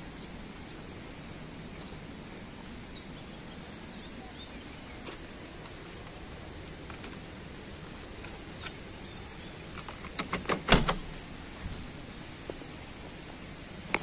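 The cab door of a JCB 3DX backhoe loader being unlocked with its key and unlatched: a quick cluster of metallic clicks and a clunk about ten to eleven seconds in, and another click near the end. Faint bird chirps over a steady outdoor background before that.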